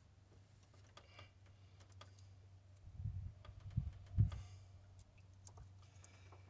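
Quiet, scattered clicks and taps of hands and metal tools working at the water pump's lower radiator hose connection, with a few dull low thumps about three to four seconds in.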